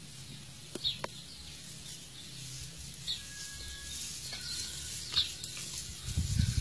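Quiet garden background with short high bird chirps every two seconds or so, and a low rumble on the microphone starting near the end.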